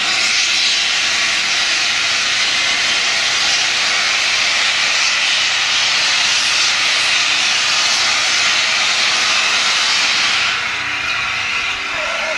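Standing steam locomotive blowing off steam: a loud, steady hiss that eases off about ten and a half seconds in.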